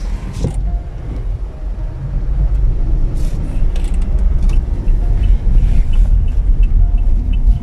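Road vehicle on the move: a steady, heavy low rumble of engine and road noise, with a few faint clicks and knocks over it.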